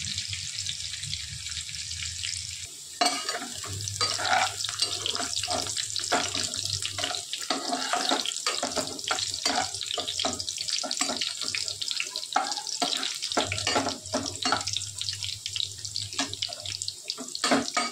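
Sliced onions sizzling as they fry in hot oil in a nonstick kadhai, turning golden. A metal spatula scrapes and taps against the pan as they are stirred, starting about three seconds in.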